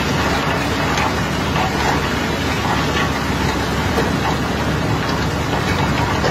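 Water jet from a hose spraying onto iron ore in a barge hold: a steady rushing hiss over a low engine hum, with scattered faint clicks of loose ore.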